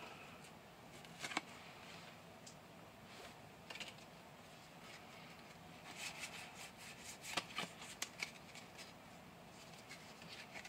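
Pokémon trading cards being slid and flicked through by hand, faint rustling with scattered light clicks, busiest about six to eight seconds in.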